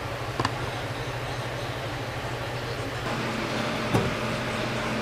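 Steady low hum and hiss with a few light clicks, the loudest about four seconds in, as hands handle the plastic drain fittings under the sink.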